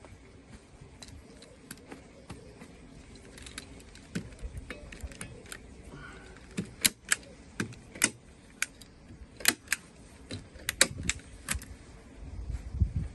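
Hand staple gun firing repeatedly into pond underlay: a run of sharp metallic snaps a few seconds in, coming quickly through the middle, over the rustle of the fabric being pressed and smoothed by hand.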